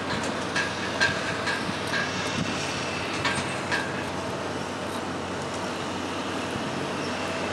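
Hydraulic trench cutter (hydrofraise) running on test with its hydraulically driven cutting wheels turning: a steady machinery drone, with a few short high squeaks in the first half.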